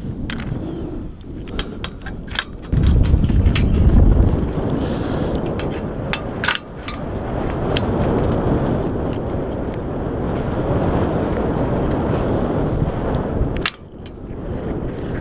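Wind buffeting the microphone, with a run of sharp metallic clicks and clanks from climbing hardware such as carabiners knocking on the steel tower. The buffeting is heaviest about three seconds in.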